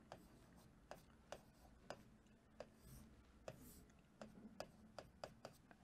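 Faint writing sounds over near-silent room tone: a dozen or so light, irregular ticks with soft scratching.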